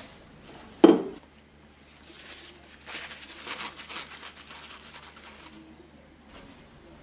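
A single dull knock about a second in, then paper towel rustling and rubbing against hollowed, wet eggplant pieces as they are patted dry in a plastic bowl.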